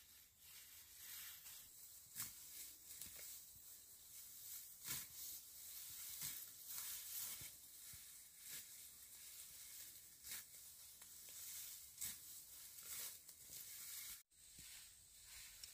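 Grass being cut and pulled by hand: faint, irregular swishes and rips of stalks, roughly one every second or two, over a light hiss.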